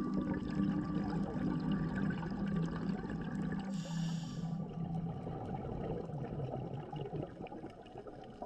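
Muffled underwater noise picked up by an action camera in its housing, with bubbling and a brief hiss about four seconds in from scuba divers' regulators. It fades a little toward the end.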